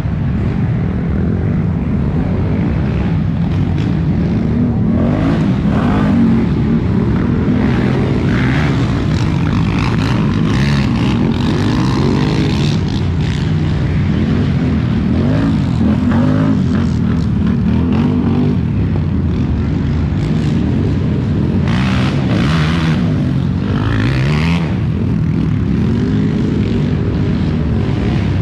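Racing quad (ATV) engines running hard, their pitch rising and falling over and over as the throttle opens and closes.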